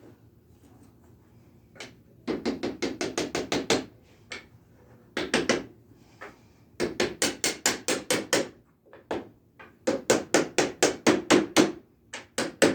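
Small tack hammer tapping on a wooden block in quick runs of light, rapid strikes, about seven a second, with short pauses between runs, driving the sconce parts down into place.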